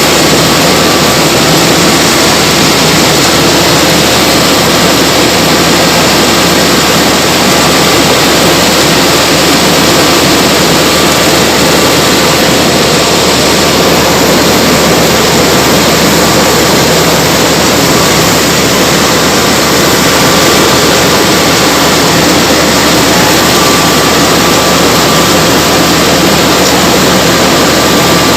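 Paddy combine harvester running steadily at work, a loud, even machine noise of engine and machinery with no letup.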